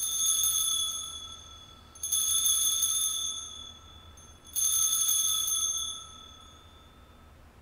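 Altar bell rung three times at the elevation of the host after the words of consecration, signalling the consecrated host raised above the altar. The three high, clear rings come about two seconds apart, each fading away.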